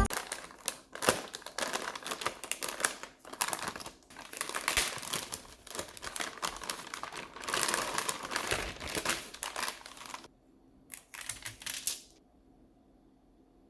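Handling sounds from building the PC: irregular crinkling and rustling mixed with small clicks. They stop about ten seconds in, come back for one short burst and then stop.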